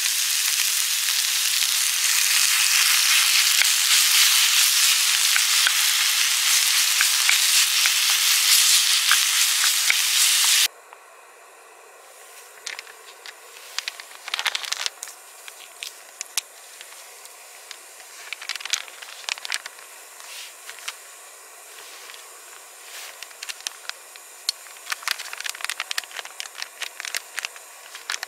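Beef, tomatoes and onion sizzling loudly in a frying pan on a gas-canister camping stove. About ten seconds in the sizzle cuts off suddenly, leaving the quieter steady hiss of the gas burner under a pot, with scattered crinkles and clicks as a food packet is opened.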